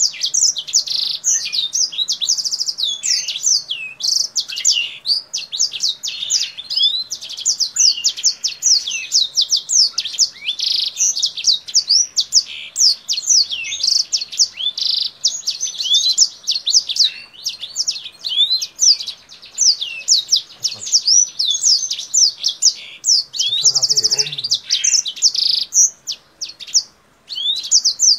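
A caged kingthroat songbird singing hard: a long, fast, unbroken warble of high chirps, quick sweeping notes and trills, breaking into shorter phrases with pauses near the end.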